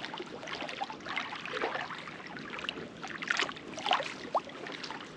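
Water trickling and splashing in small, irregular drips and plops.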